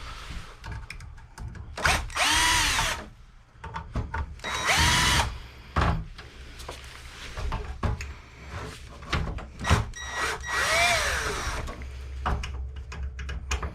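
Cordless drill driving screws out of an old computer case. It spins up and winds down three times with a rising then falling whine, with clicks and knocks of metal parts between the runs.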